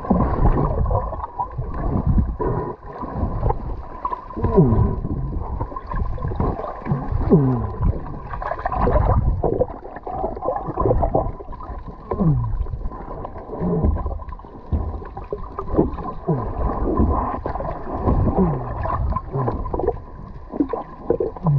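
Underwater sound picked up by a submerged camera: water moving and air bubbles gurgling, with several short falling whistle-like glides.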